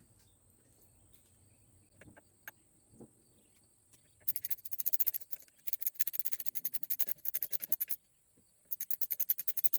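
A socket ratchet clicking rapidly as it turns out the brake lever's pivot bolt, in two long runs of quick, even clicks with a short pause between them and a few faint ticks before.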